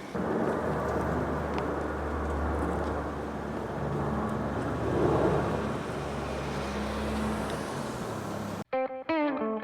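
Road traffic noise: a steady low rumble of passing vehicles that swells about halfway through. It cuts off suddenly near the end, and plucked guitar music begins.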